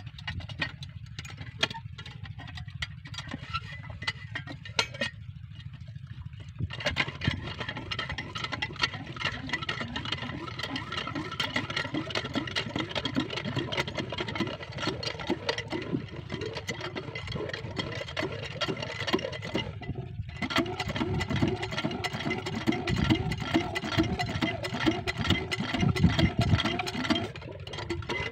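Single-cylinder diesel engine driving an irrigation water pump. It comes in suddenly about seven seconds in and runs with a fast, steady knocking beat. Near twenty seconds it drops out for a moment, then runs on louder.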